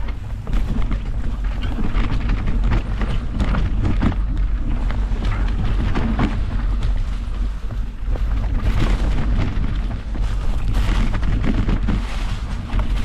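Wind rumbling on the camera microphone of a mountain bike riding a dirt forest trail, with tyres running over dirt and dry leaves and frequent knocks and rattles from the bike over bumps.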